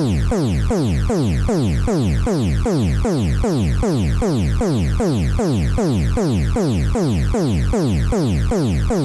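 Electronic emergency alert alarm tone: a rapid, unbroken series of falling sweeps, about three a second, repeating evenly.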